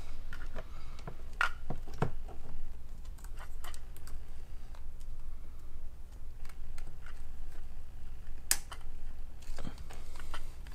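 Scattered light clicks and taps of a hand wire crimper and wire being worked into an insulated butt splice connector, with a sharper click about eight and a half seconds in. A low steady hum runs underneath.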